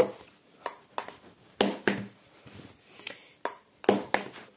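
Table tennis ball tapping against a rubber-faced paddle and the tabletop: about eight sharp, irregular clicks, with a pause of over a second near the middle.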